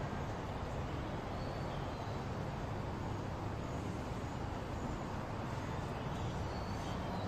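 Steady low hum over an even background noise, with a few faint, short high chirps.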